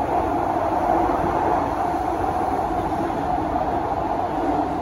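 Inside the car of a Kawasaki–CSR Sifang C151A metro train running at speed: a steady rumble of wheels on rail and car noise, even in level throughout.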